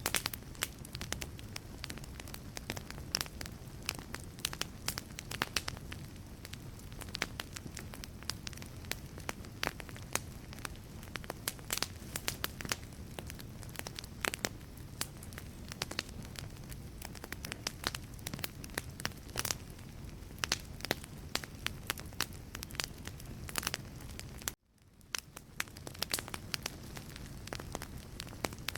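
Wood fire burning in a fireplace, the logs crackling and popping in dense, irregular snaps over a low steady rumble of the flames. The sound cuts out for a moment near the end and fades back in.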